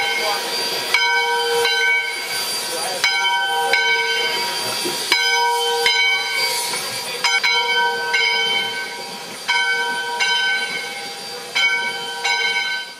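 Closing music: held, pitched notes that change every second or so over a steady hiss, fading out at the end.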